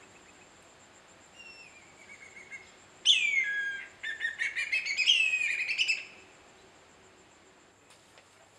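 Whistling kite calling: a loud descending whistle about three seconds in, a quick run of short rising notes, then a second descending whistle, lasting about three seconds in all. Fainter, thinner bird notes come a little before it.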